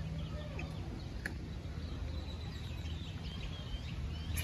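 Faint, scattered high chirps of small animals over a steady low background hum, with one light click about a second in.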